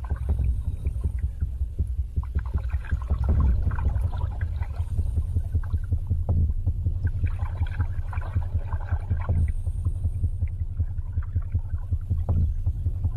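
Underwater river ambience: a low, quickly fluttering rumble with scattered faint clicks and bubbly crackles.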